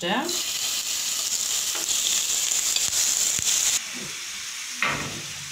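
Prawns tipped into a hot non-stick pan with a spoonful of oil, sizzling loudly as they hit the oil and release their water. About four seconds in, the sizzle drops to a quieter, steady frying.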